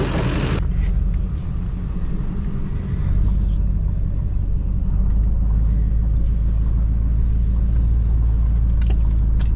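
LBZ Duramax 6.6-litre V8 turbodiesel idling with a steady low rumble, just fitted with a new turbocharger. It gets louder about three seconds in.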